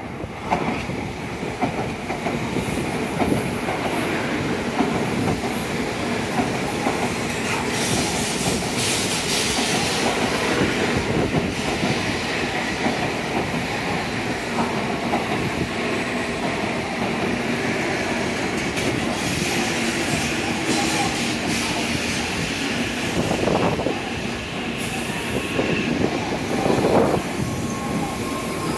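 N700A-series Shinkansen bullet train arriving at a platform, its cars rolling past with steady running noise and repeated clacks of wheels over rail joints and points as it slows to a stop.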